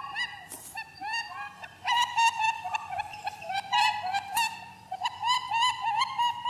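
Rapid, continuous run of short, high squeaking calls, several a second, each rising and falling in pitch, used as rabbit sounds.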